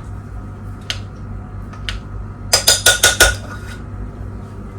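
Metal spoon clinking against a cooking pot while stirring: two single knocks, then a quick run of about five ringing clinks midway, over a low steady hum.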